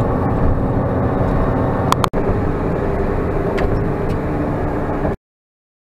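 Car driving at highway speed, heard from inside the cabin: steady engine and road noise. It breaks off for a moment about two seconds in, then cuts to silence about a second before the end.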